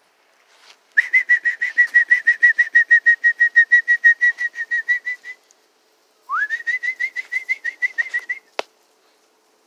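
A person whistling a rapid warbling trill at about nine pulses a second, calling puppies. It comes in two runs, and the second opens with a quick upward slide. A single sharp click follows near the end.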